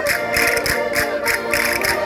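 Traditional concertina music: held reedy chords and melody over a steady beat of bright percussion strokes, about three to four a second.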